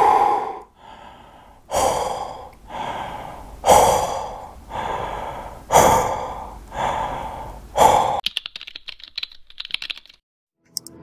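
A man gasping loudly about eight times, each breathy gasp a second or so apart and tailing off. Near the end comes a quick run of keyboard typing clicks as a title is typed on screen.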